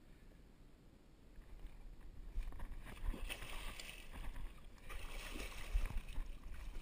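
Big blue catfish thrashing and splashing at the water's surface beside a boat as it is hauled in on a jug line, with a few dull knocks. The splashing starts a couple of seconds in and comes in two bursts.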